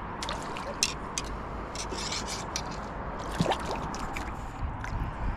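Irregular rubbing, scraping and clicking with water trickling and dripping, as a freshly landed fish and tackle are handled in a kayak.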